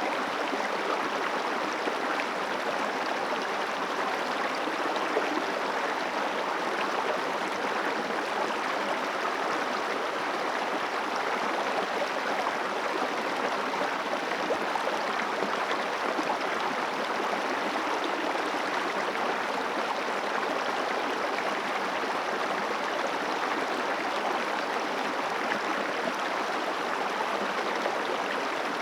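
The Guadalquivir river flowing: a steady, even rush of running water with no change throughout.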